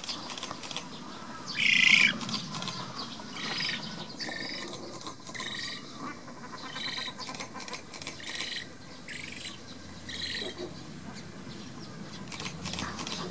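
Black-faced spoonbill chick calling: a loud, wavering squeal about two seconds in, then a run of shorter, quieter high calls about once a second.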